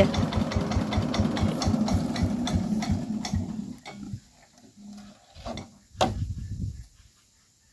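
Micro tractor's engine running with a rapid, even chugging, which stops about four seconds in. A few sharp knocks follow.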